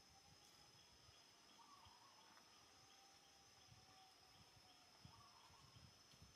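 Near silence with a faint, steady high-pitched drone of insects.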